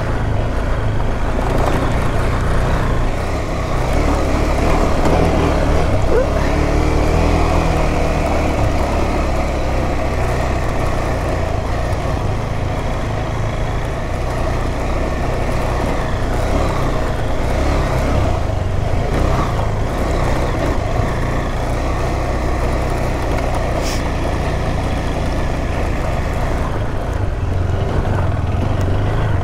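Adventure motorcycle engine running at trail speed on a dirt track, with the revs rising and falling a few seconds in.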